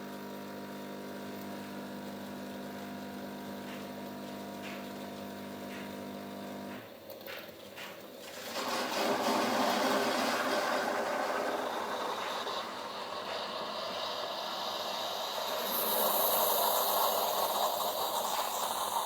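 Bosch Tassimo Fidelia pod coffee machine brewing: its pump hums steadily, cuts out about seven seconds in, then gives way to a louder, steady hissing as the drink is forced through the pod.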